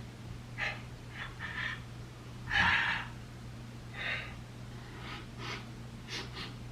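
A person's short breathy puffs and gasps, about six spread over a few seconds, over a faint steady low hum.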